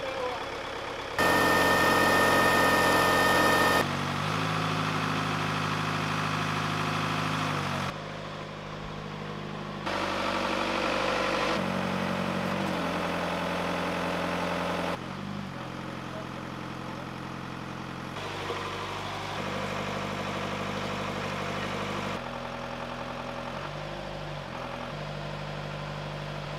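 Boatyard travel lift's engine running, its pitch and loudness changing abruptly every few seconds. Between about one and four seconds in it is louder, with a high steady whine over it.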